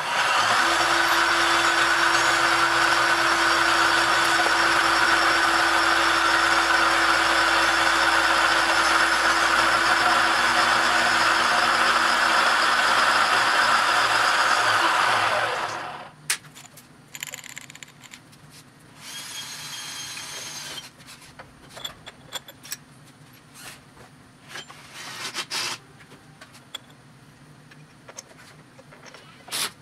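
Vertical milling machine's end mill cutting a small flat on a 1018 cold-rolled steel stop: a steady, loud cutting noise over the spindle's hum for about fifteen seconds, which cuts off suddenly about halfway through. After it come a few light metal clicks and knocks and a short burst of whirring.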